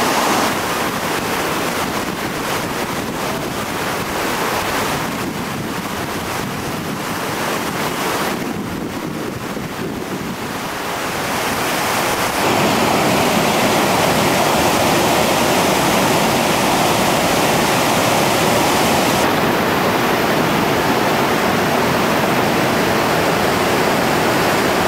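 Whitewater rapids rushing over rocks: a steady noise of churning river water, louder from about twelve seconds in.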